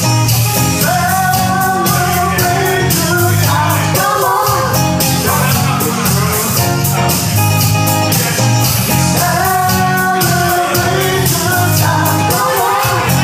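Live band playing: a woman singing over electric bass, electric guitar and a Pearl drum kit keeping a steady beat.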